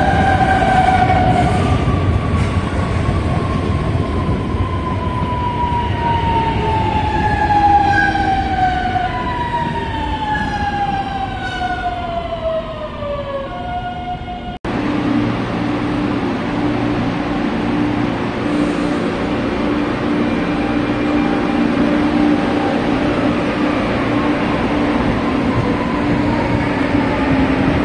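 CPTM suburban electric multiple-unit train running close by over a rumble of wheels on rail, its motors whining in several glides that fall in pitch. After a sudden cut about halfway through, a steady low hum of an electric train with the same track noise beneath it.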